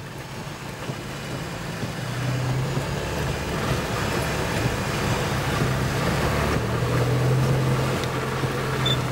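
Car heard from inside the cabin while driving on a wet road: a steady low engine drone under tyre hiss from the wet surface, getting louder from about two seconds in.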